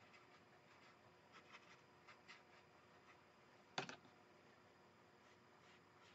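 Faint brush strokes of a watercolor brush on wet paper, with one sharp click a little under four seconds in.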